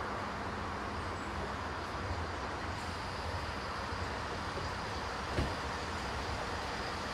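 Class 166 diesel multiple unit running slowly into the platform: a steady low diesel hum and wheel-on-rail rumble, with one short thump about five seconds in.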